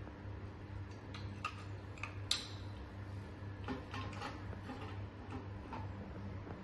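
Small, irregular clicks and ticks of a screwdriver turning screws and a plastic holder being fitted onto a machine's metal top panel, the sharpest click about two seconds in. A low, steady hum runs underneath.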